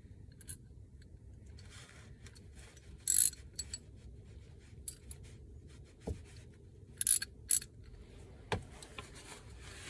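Small metal clinks and rattles of an oil drain plug and a ratchet socket being handled and fitted together in gloved hands: a few short jingles, the loudest about three seconds in, with two dull knocks later on.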